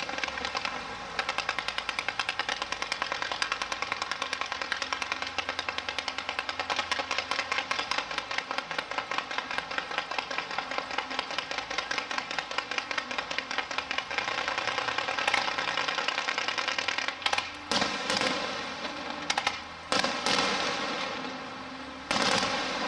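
Aerial fireworks crackling in a fast, even stream of sharp pops, like machine-gun fire. A few louder bangs come in the last few seconds.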